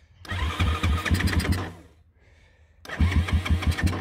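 A 190cc single-cylinder pit bike engine being cranked by its electric starter in two bursts of about a second and a half, turning over in rapid pulses without catching.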